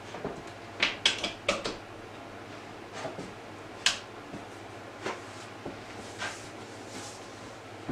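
A cluster of clicks and knocks as a mains plug is pushed into a wall socket, then one sharp click about four seconds in as the socket switch is flipped on, followed by a few lighter knocks.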